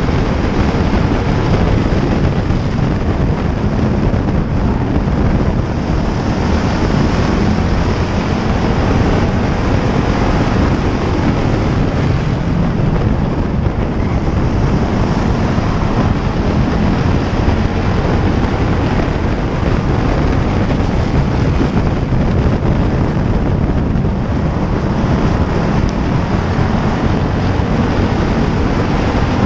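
Pure stock race car at racing speed on an oval, its engine running hard under loud, steady wind buffeting on a hood-mounted microphone.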